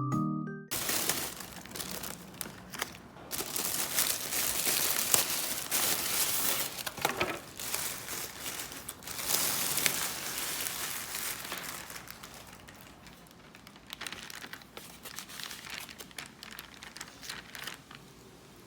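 Crinkling and rustling of something being handled, with many small irregular crackles. It is loudest in the first half, then grows fainter.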